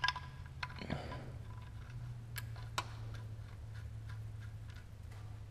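Light metallic clicks and ticks as the oil drain bolt is threaded by hand into the Scion FR-S's oil pan, a few scattered taps mostly in the first three seconds. A steady low hum runs underneath and gets stronger about two seconds in.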